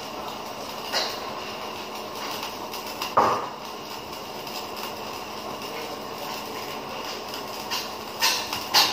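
Electric arc welding on a steel C-channel: the arc gives a steady crackling hiss. A few sharp metallic knocks break through it, about a second in, about three seconds in, and several close together near the end.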